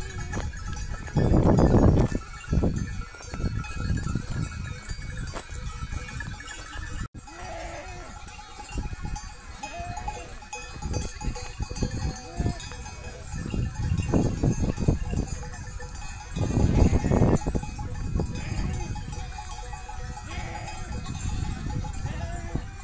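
Flock of sheep and goats with livestock bells clinking and animals bleating now and then, among many small knocks and rustles. Two louder low rushes of noise come about a second and a half in and again near the end.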